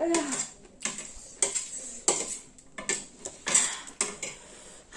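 Close-up mukbang eating noises: a series of about eight short, sharp crunching and clattering bursts as spicy singju is chewed and handled on steel plates, after a brief voiced exclamation at the very start.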